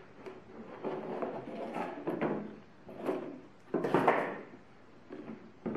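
Hard plastic tool case sliding out of its cardboard sleeve and being handled on a table: a run of scraping and rustling, with the loudest scrape and clatter starting suddenly about four seconds in, and a short knock near the end.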